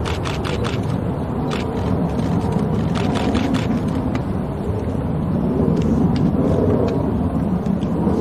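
Open-air ambience: a steady low rumble, with a few sharp clicks in the first half.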